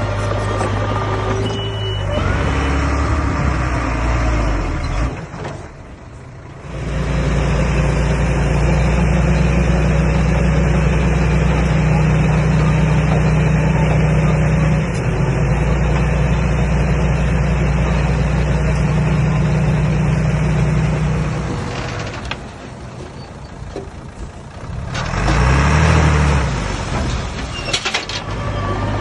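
Komatsu D21A bulldozer's diesel engine running, loud and steady under load through most of the stretch. It drops away briefly twice, with a short rev that rises and falls near the end.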